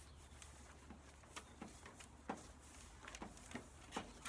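Faint, irregular clicks and taps of handling, about eight of them, over a low steady hum.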